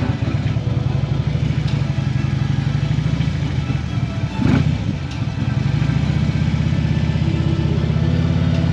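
2015 Harley-Davidson Ultra Limited's Twin Cam 103 V-twin running at low speed with a steady loping pulse, with one brief louder blip of throttle about halfway through.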